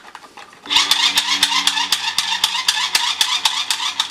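Battery-powered clownfish bubble blower toy switched on about 0.7 s in, its small motor whirring steadily with a rapid, irregular clicking.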